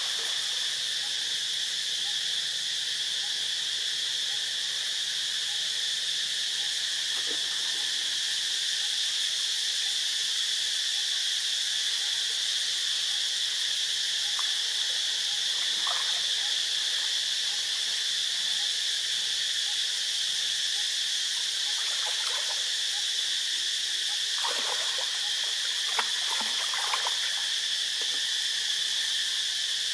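Steady high-pitched drone of an insect chorus, with a few faint splashes of water now and then.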